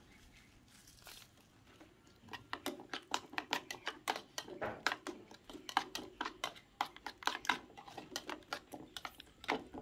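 A spoon beating a runny orange-yellow mixture in a small bowl, clicking against the bowl's side in a quick, even rhythm of about five strokes a second that starts a couple of seconds in.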